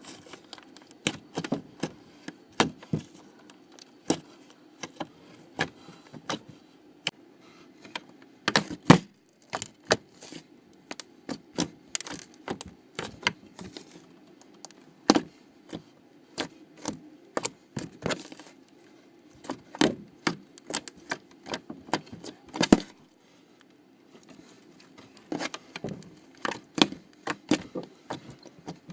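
Slime being squished and poked by hand, making irregular sticky clicks and pops several times a second, with a short pause about three-quarters of the way through.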